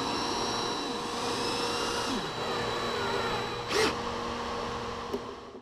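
DeWalt cordless drill running steadily with a whine while driving the screws that fasten a plastic double rod holder to a cooler. There is a short louder burst a little before four seconds in, and the sound cuts off suddenly at the end.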